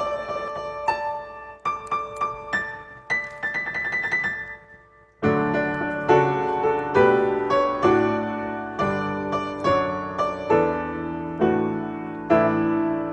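Piano playing: a few lighter struck notes, a brief pause about five seconds in, then a steady run of fuller, louder chords.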